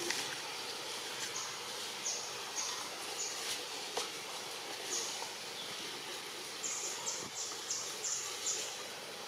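Outdoor natural ambience: a steady background hiss with short high-pitched chirps, scattered at first and then in a quick run of about seven, two to three a second, near the end.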